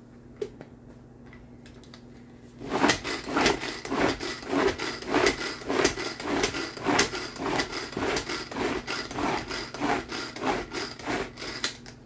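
Tupperware pull-cord chopper pulled over and over, about two pulls a second, each a rasping whir of the cord and spinning blades chopping tomatoes, onions and cheese into a sauce. The pulling starts a few seconds in.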